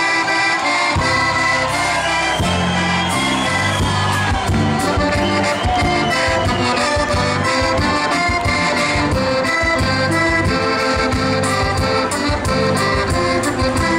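Live gaúcho band music led by an accordion, with a bass line entering about a second in and a steady beat.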